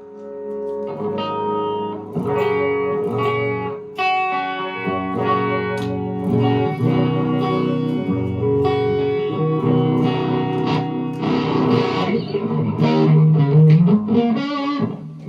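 Electric guitar played through a Behringer OD300 overdrive pedal used as a boost, ahead of a Zoom multi-effects unit into a Vox MV50AC amp: a run of single notes and chords, with a note bent upward near the end.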